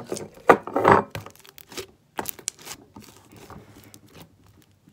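Purple slime being pulled out of a glass mason jar and squished by hand: sharp sticky pops and clicks, loudest in the first second, then softer, sparser pops as the slime is poked and stretched.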